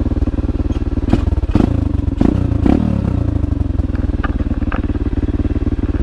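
Enduro dirt bike engine running steadily, with a brief rev partway through. Knocks and clatter from the bike working over rough trail come between about one and three seconds in.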